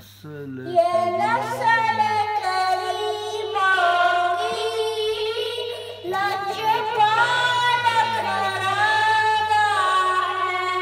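A young boy's unaccompanied melodic Islamic recitation, sung in long drawn-out phrases with a short breath break about six seconds in.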